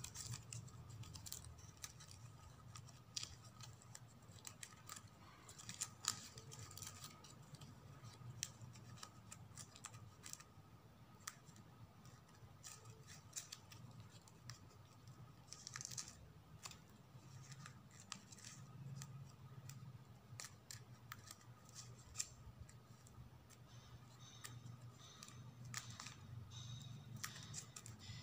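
Faint rustling and scattered small clicks of plastic ribbon being tucked and pulled through a woven ribbon ball with metal tweezers, over a low steady hum.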